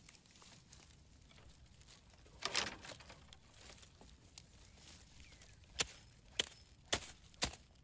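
Hatchet chopping at the base of a thin sapling stem: a brief rustle of dry stems about two and a half seconds in, then sharp strikes of the blade into the wood, about two a second over the second half.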